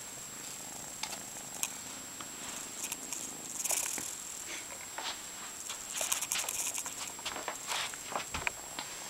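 A kitten purring close by while kittens scuffle on soft bedding, with irregular rustles and small knocks.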